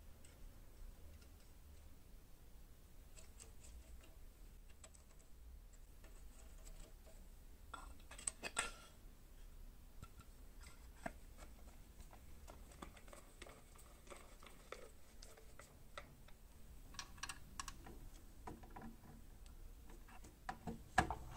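Faint clicks and taps of small metal parts and hand tools being handled, over a low steady hum, with a few louder clicks about eight seconds in and again near the end.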